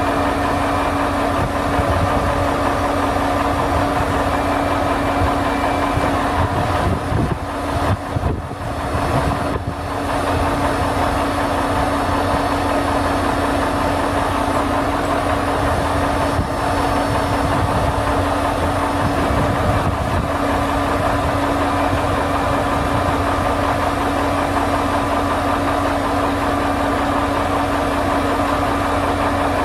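Engine on a bucket truck running steadily at constant speed, a steady drone with a strong hum and low rumble. The level dips briefly about eight to ten seconds in.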